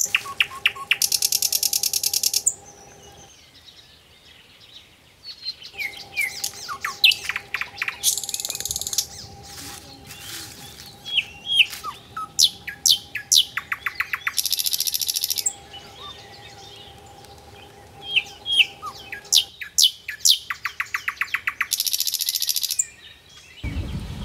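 Birds chirping: a very fast high trill alternating with quick downward-sweeping chirps, the pattern recurring about every six or seven seconds.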